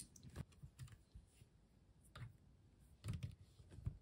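Faint scattered clicks and taps of small LEGO plastic pieces being handled and pressed onto a brick model, with slightly louder clicks about two and three seconds in.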